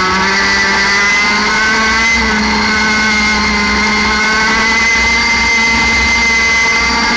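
Single-cylinder 60cc two-stroke kart engine at full throttle, pulling out of a corner from about 11,300 rpm up to around 13,800 rpm. Its high buzzing note rises a little about two seconds in and then holds steady near the top of the rev range.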